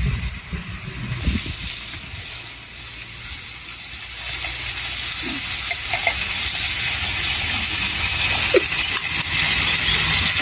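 Shark pieces and fried onions sizzling in a clay pot over a wood fire, a steady hiss, while a wooden spoon stirs them. There are a few low knocks in the first second and a half.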